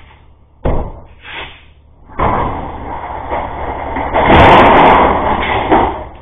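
A single sharp bang about half a second in, then loud, rough engine noise from the getaway truck pulling away, loudest between about four and six seconds in. It is heard through a security camera's narrow-band microphone.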